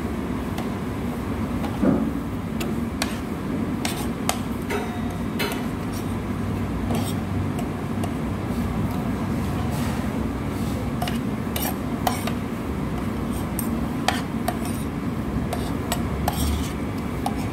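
Cutlery clinking against plates and dishes now and then, over a steady background hum.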